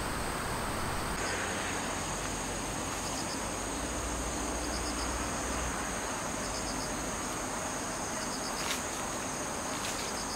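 Insects chirring, crickets by their sound: two steady high-pitched trills, the second joining about a second in, with short repeated chirps every second or two, over a steady background hiss.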